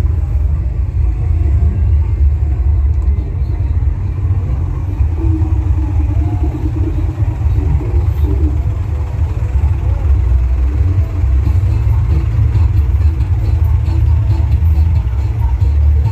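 Deep, continuous bass rumble from a large truck-mounted 'sound horeg' speaker system played at very high volume, with little of the music above the bass coming through.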